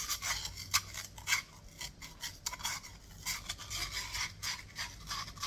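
Sandpaper rasping against the end of a copper pipe, worked back and forth by hand in quick, irregular strokes. The pipe end is being sanded smooth of scratches and the burr left by a grinder cut so it will slide into a compression fitting.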